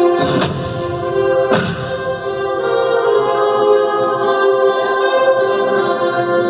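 Choral music with sustained voices, broken by two sharp hits in the first two seconds.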